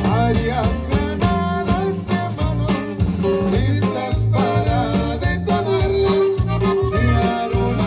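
A song played by a band: plucked guitars over a steady bass line, with a voice singing.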